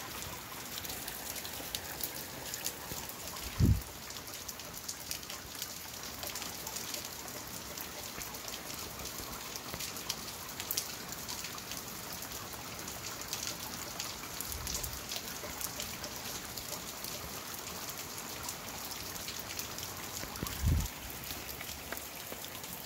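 Steady rain falling, with many small raindrop ticks, broken three times by a brief low thump, the loudest about three and a half seconds in.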